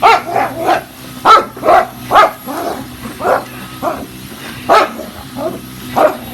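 A dog barking over and over, about a dozen short barks at roughly two a second, unevenly spaced, at a running vacuum cleaner. A faint steady hum from the vacuum sits beneath the barks.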